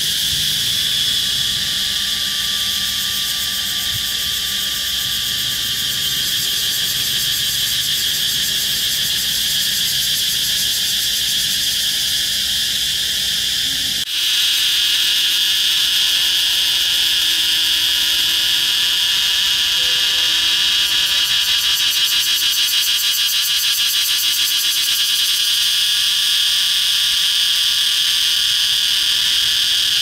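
Cicada singing: a continuous, shrill, high-pitched buzz with a fine rapid pulse, a little louder from about halfway through.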